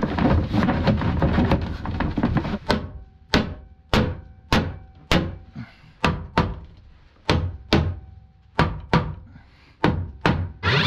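A gull-wing panel rattling and scraping as it is pushed into its opening, then a hammer knocking it into place: about fourteen sharp knocks, roughly two a second, some with a short metallic ring.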